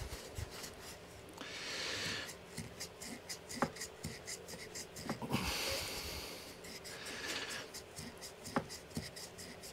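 Wire wool scrubbing rust out of a metal carburettor float bowl by hand. It comes in a few scratchy strokes of about a second each, with fine scratching and small knocks in between.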